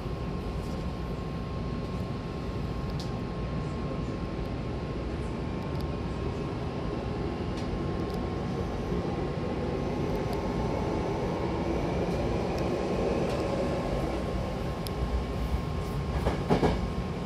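Hankyu Takarazuka Line electric train running between stations, heard from inside a carriage: steady rumble of wheels and motors, with a faint rising whine through the middle and a few sharp clicks and knocks near the end.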